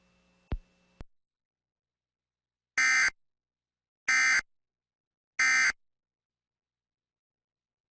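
Emergency Alert System end-of-message code: three short, identical warbling data bursts about a second and a quarter apart. They mark the close of the severe thunderstorm warning. Two faint clicks come just before them.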